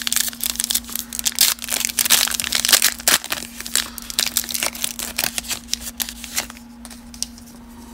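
Foil wrapper of a 2020 Donruss baseball card pack being torn open and crinkled by hand: a dense run of crackling that dies down about six and a half seconds in.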